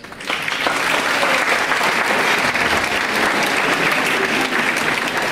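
Audience applauding, a dense steady clapping that breaks out just after the start and holds at full strength.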